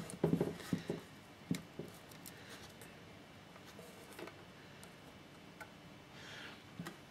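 Faint handling noises as multimeter probe leads are held against the thin wires of a temperature sensor: a few small clicks and rustles, most in the first second, then quiet room tone with occasional light ticks.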